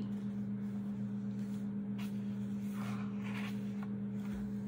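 Steady low electrical-sounding hum of a quiet room, with a couple of faint soft sounds about two and three seconds in.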